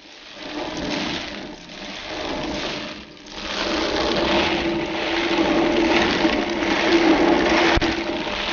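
A windmill's pair of millstones grinding maize, a steady grinding noise with a hum, while the ground meal pours down the wooden chute into a sack. It grows louder about three and a half seconds in, with one short click near the end.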